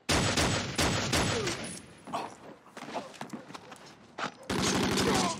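A shootout with rapid gunfire: a dense volley of shots at the start, scattered single shots after it, and another quick burst of shots near the end.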